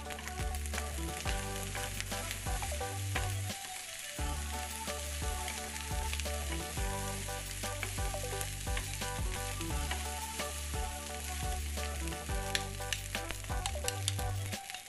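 Egg fried rice sizzling in a hot nonstick frying pan while a wooden spatula stirs and scrapes it, with clicks of rice and spatula against the pan. Background music with a bass line plays underneath.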